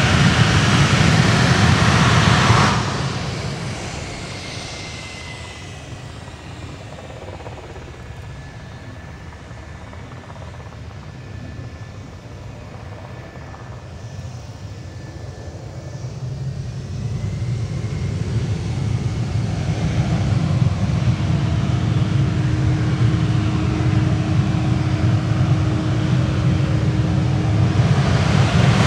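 Twin J79 turbojets of an RF-4E Phantom II running on the runway. The loud jet noise drops off sharply about three seconds in, stays lower through the middle, then grows steadily louder again over the second half, with a faint steady whine on top.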